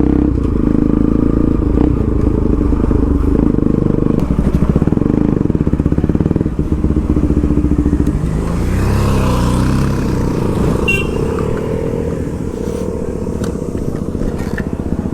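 Motorcycle engine running under way, a dense steady pulsing; about halfway through, the engine note dips and rises again.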